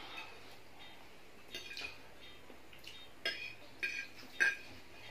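Metal forks clinking and scraping against a plate of noodles: a handful of short, sharp clinks, starting about one and a half seconds in and coming every half second or so toward the end.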